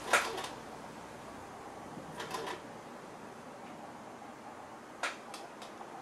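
A sharp click, then a few fainter clicks and knocks over a low steady hiss, from handling the Sony VAIO laptop as it is switched on and starts to boot.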